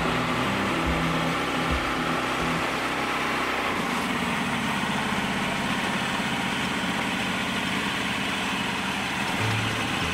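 Portable bandsaw mill's engine running with the blade sawing through a beech cant; the cut ends about four seconds in and the engine runs on steadily.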